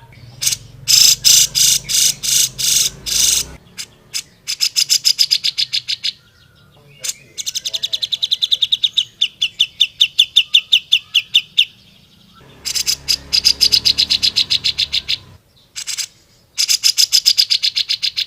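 Cucak jenggot (grey-cheeked bulbul) singing loud, fast phrases of rapidly repeated high notes, in bursts of a few seconds separated by short pauses, including one longer steady trill in the middle.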